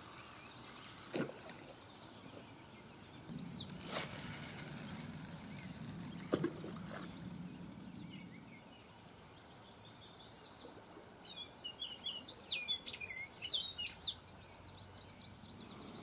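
Birds chirping and singing over faint steady background noise, with a quick run of high chirps and trills in the second half. A few sharp clicks in the first half.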